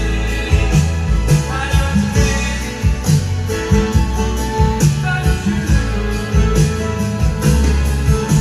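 Music with singing and a strong bass line played loud through a DIY sound system: a Broadway BWH121k woofer in an X1 bandpass L-ported box driven by a Challenger 900+ power amplifier, being sound-checked.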